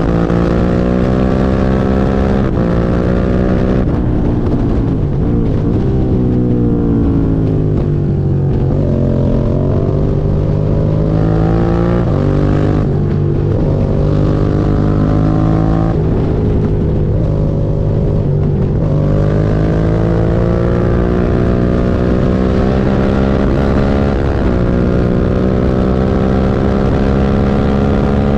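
Suzuki SV650 V-twin engine running under load, its note climbing steadily and dropping back several times as the revs rise and fall, on a bike whose owner reports a misfire.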